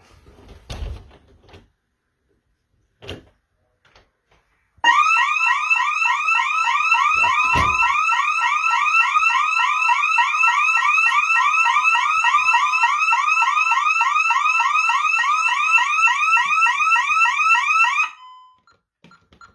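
Siren of a Honeywell Vista 15P alarm system sounding after a few soft clicks: a loud rising whoop repeated several times a second. It starts about five seconds in and cuts off suddenly near the end. It is the alarm going off with the system armed in instant mode, and it stops when the alarm is silenced.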